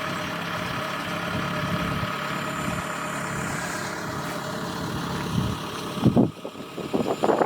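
Kubota DC-70G PRO rice combine harvester's diesel engine running steadily. About six seconds in, a sudden loud thump, followed by uneven bursts of noise.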